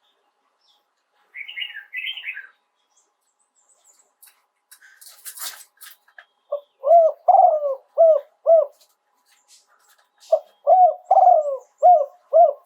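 Spotted dove cooing its crowing song in two phrases of several hooked, repeated notes, the first starting about six and a half seconds in and the second about ten seconds in. Before them there is a brief higher chirping and a short rustle.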